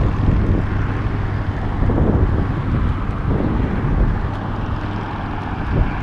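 Wind buffeting the microphone on an open pier: a steady, unsettled low rumble with no clear events.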